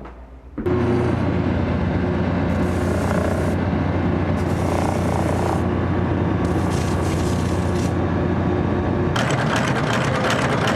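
A cobbler's electric bench machine switched on about half a second in, its motor running with a steady hum, with three short spells of grinding or sanding as work is pressed to it, and a rougher, crackly grind near the end.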